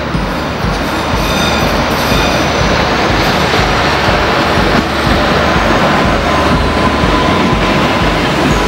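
Rhaetian Railway electric motor train and coaches rolling past close by on a curve of metre-gauge track, a steady loud rolling rumble. A thin, steady wheel squeal joins about six seconds in.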